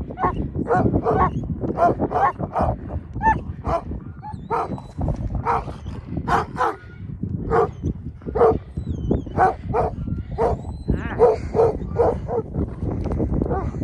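Akbash/Great Pyrenees livestock guardian dogs, several at once, barking over and over at a raccoon up on a fence post: alarm barking at a predator held at bay. A steady low rumble runs underneath.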